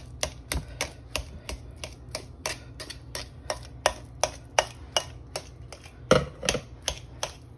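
A knife chopping soft boiled potatoes in a glass bowl, its blade clicking against the glass about three or four times a second, with a couple of heavier knocks about six seconds in.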